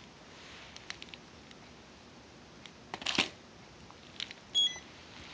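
Quiet room with a few scattered light clicks and a short burst of handling noise about three seconds in. Near the end, a button press on the magnetic pulser's control unit with a brief high beep.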